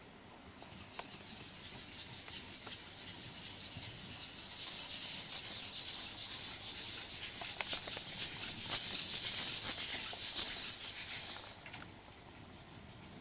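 Small steam tank locomotive hissing steam as it works slowly along the track, the hiss building over several seconds with faint irregular clicks, then cutting off sharply about a second and a half before the end.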